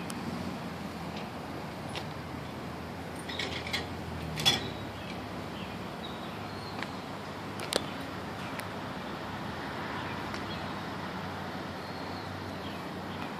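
Steady low outdoor background hum, with a few light clicks and knocks from rope-rescue gear being handled; the sharpest click comes about four and a half seconds in.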